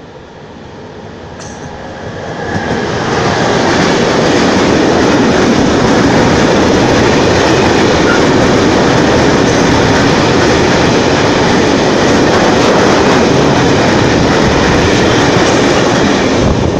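Freight train passing at speed close by: its approach grows louder over the first three seconds, then becomes a loud, steady rush of wagon wheels on the rails as the covered wagons go by.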